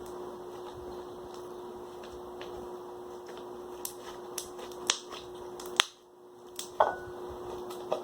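A few short, sharp clicks and taps from handling the slime-making things (pot, spoon, dye bottle), over a steady background hum. The clicks come in the second half, the loudest just before the middle of that half and again a moment later.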